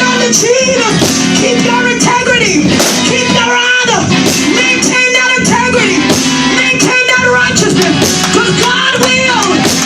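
Loud live church band music with drum hits and held chords, voices singing over it.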